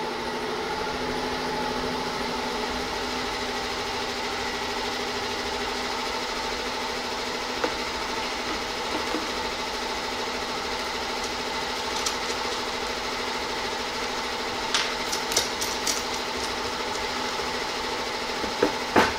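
A machine's motor running steadily with a constant, even-pitched drone. A few light metallic clicks of small parts being handled come in the second half.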